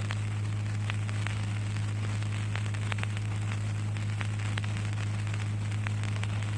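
A steady low electrical hum with an even hiss and scattered crackles: the background noise of the recording itself.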